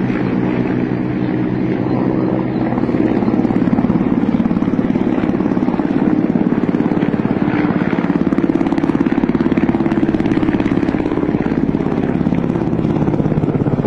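Kamov Ka-52 coaxial-rotor attack helicopter passing low overhead: a rapid rotor chop over a steady engine drone, louder from about three seconds in.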